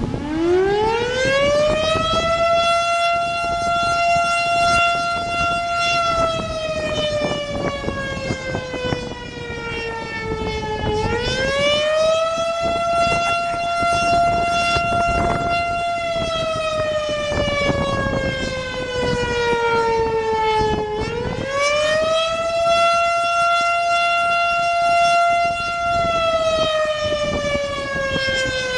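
Federal Signal STH-10A three-phase outdoor warning siren sounding the attack signal. It winds up to a high held tone, holds it for a few seconds, then slowly falls in pitch before winding up again, about every ten seconds, rising three times.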